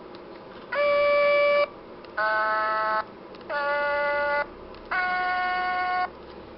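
Sing-A-Ma-Jigs plush toy singing four held electronic notes at slightly different pitches, each a little under a second long with short pauses between them, as its belly is squeezed.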